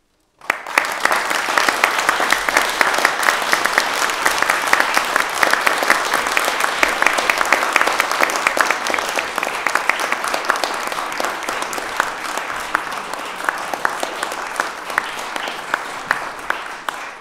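Audience applauding, beginning suddenly about half a second in and slowly thinning toward the end.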